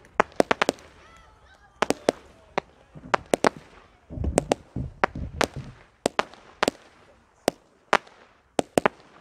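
Fireworks display: a string of sharp bangs and cracks at irregular intervals, with a heavier, low rumbling volley about four seconds in.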